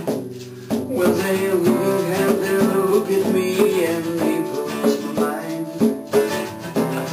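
Live acoustic guitar strummed in a steady rhythm, with hand-drum and rattling shaker-like percussion and a wavering held melody over it. It picks up again after a short dip near the start.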